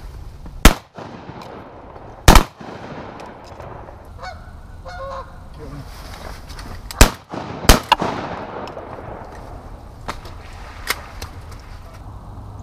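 Canada geese honking on a pond, the calling heavier after about eight seconds in. Four loud sharp bangs cut through it, each with a short echo: two about a second and a half apart near the start, and two more close together about seven seconds in.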